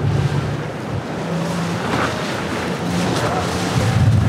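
Outboard motorboats running at speed, a low engine hum under the rush of the hull and spray, the engine noise growing louder near the end.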